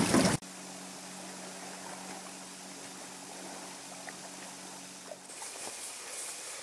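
Water sloshing around a boat's stern with wind on the microphone, cut off suddenly about half a second in. After that there is only quiet outdoor ambience with a faint steady low hum.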